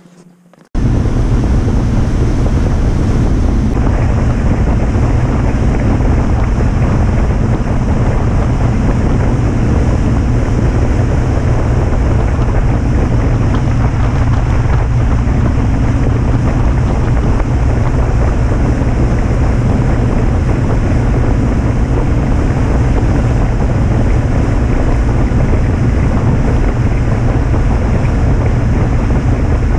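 Wind buffeting the microphone and water rushing in the wake of a passenger boat under way at speed, a loud steady noise that cuts in suddenly under a second in.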